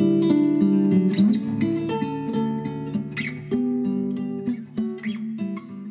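Instrumental soundtrack music on acoustic guitar, plucked and strummed notes, gradually fading out.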